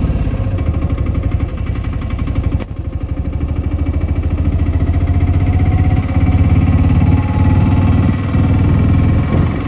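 Auto-rickshaw's small engine running steadily while the vehicle drives, a fast-pulsing low drone with road noise. There is one sharp knock about two and a half seconds in.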